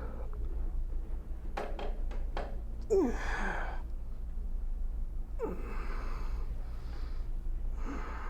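A patient's voiced sighing exhales under hands-on hip treatment, three of them, each sliding down in pitch, with a few faint clicks before the first and a steady low hum underneath.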